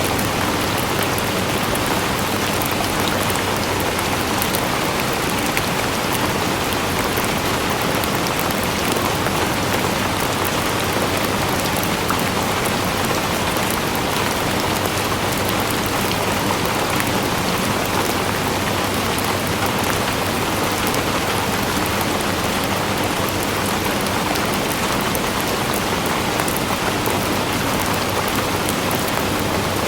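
Steady rain falling and pattering on a surface, an even hiss with fine drop crackle and no let-up.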